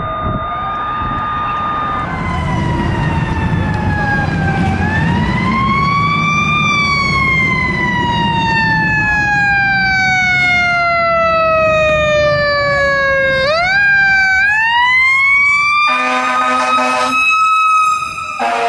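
Fire truck siren held at a steady high pitch, then winding slowly down and back up: one long fall over about seven seconds, then a quick wind back up to full pitch. A horn blares for about two seconds near the end, over the low rumble of the truck's engine.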